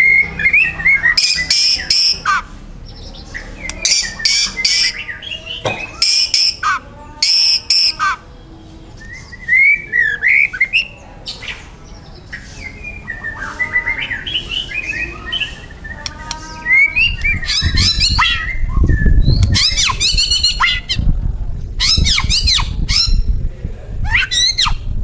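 White-rumped shama (murai batu) singing a loud, excited song: whistled glides, fast trills and harsh rasping notes in quick phrases. About two thirds of the way in, a low rumbling noise joins underneath.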